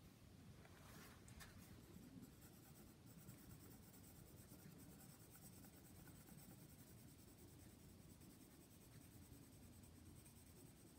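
A pencil faintly scratching on sketchbook paper as it colors in a drawing.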